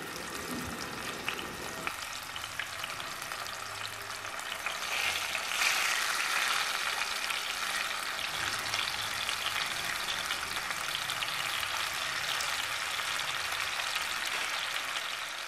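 Marinated fish steaks frying in hot oil in a kadai: a steady hiss that grows louder about five and a half seconds in, as more pieces are laid into the pan.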